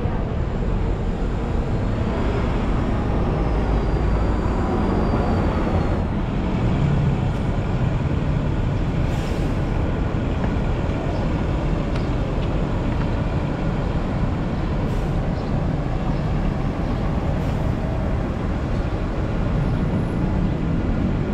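Steady city street traffic heard close to the road: an articulated city bus's engine moving off along the curb, then ongoing intersection traffic. A thin high whine rises and falls briefly a few seconds in.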